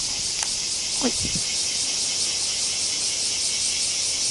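Steady high-pitched insect drone with a faint regular pulsing, typical of summer insects in waterside weeds.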